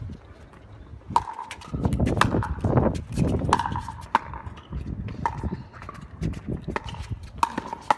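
Pickleball paddles striking the plastic ball in a singles rally: a run of sharp, hollow pocks, each with a short ring, coming roughly every half-second to second. Wind rumbles on the microphone underneath, loudest in the first half.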